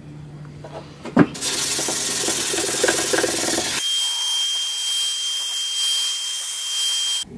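Wagner handheld electric paint sprayer switching on with a click about a second in, then running with a loud, steady hiss of rushing air as it sprays paint. From about halfway a steady high whine sits over the hiss.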